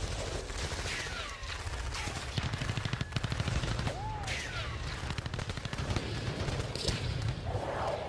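Battle sound effects: rapid, continuous machine-gun fire over a low rumble, with several short falling whistles cutting through.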